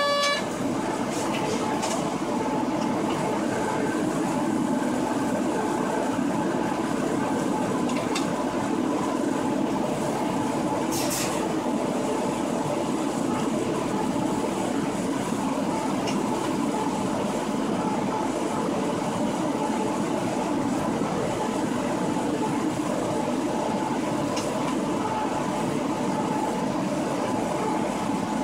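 Inside the cab of a DB class 143 electric locomotive running along the line: a steady rumble of wheels and running gear with a faint steady whine. A few sharp clicks come through about 2, 8 and 11 seconds in, and a brief high tone sounds right at the start.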